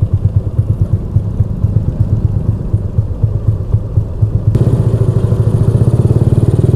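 Honda Supra X 125's single-cylinder four-stroke engine running at low speed in slow traffic, heard as a pulsing low rumble. About four and a half seconds in, the sound gets louder and gains a hiss.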